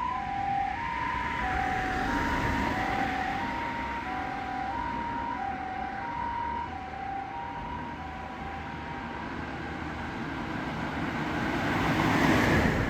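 Japanese ambulance siren sounding its two-tone high-low "pee-poh" wail, steady alternation about every two-thirds of a second, fading away around three-quarters of the way through. Road noise under it swells as a vehicle passes close near the end, the loudest moment.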